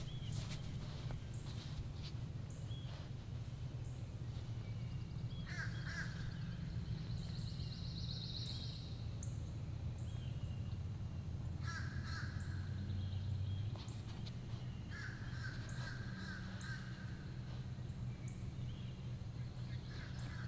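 Crows cawing in several separate bursts, with small birds chirping in between, over a steady low rumble.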